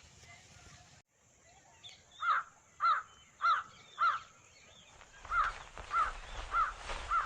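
A bird calling repeatedly outdoors in two runs of four quick calls, a little under two calls a second.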